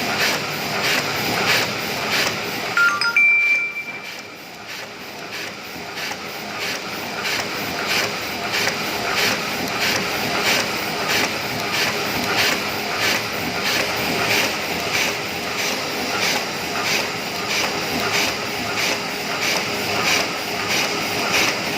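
Oliver 52 offset printing press running, with a steady rhythmic clatter repeating about twice a second. About three seconds in there is a brief high tone and a short drop in level before the clatter builds back up.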